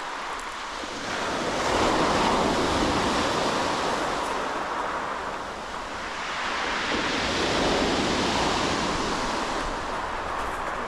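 Sea waves breaking and washing up a shingle beach, swelling about two seconds in and again near eight seconds.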